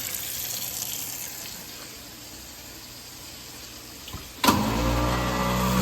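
Water running into a kitchen sink, then a garbage disposal switched on near the end, its motor starting abruptly and running with a loud steady hum.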